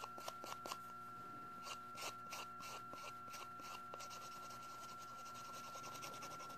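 Gel nail coating being filed down with a cushioned buffing file, in quick short rasping strokes that come in uneven runs. A faint steady high tone runs underneath.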